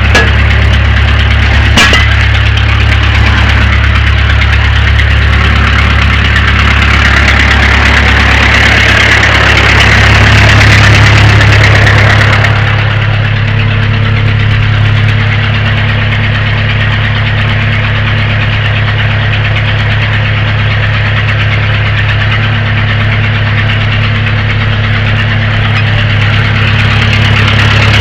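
Backhoe's diesel engine running steadily, its note rising and growing louder for a couple of seconds about ten seconds in, then easing back, as the bucket is worked down on the tire to break the bead. A single sharp clank sounds about two seconds in.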